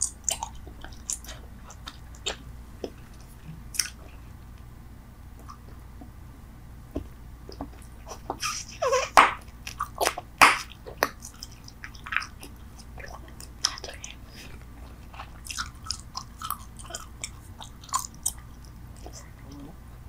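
Bubble gum being chewed with the mouth close to the microphone: irregular wet smacks and clicks, with a louder run of them from about nine to eleven seconds in.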